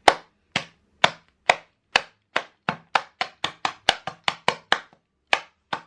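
Rolling pin whacking a bag of peppermint candy on the counter to crush it into chunks: a run of loud, sharp bangs that comes faster in the middle, about four a second, with a short pause near the end.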